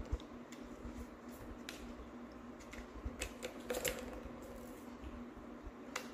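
Light plastic clicks and rattles from a three-tier cat track ball toy as a kitten paws at it and the balls knock in the track: scattered single clicks, a quick cluster about halfway through and one more near the end. A faint steady hum runs underneath.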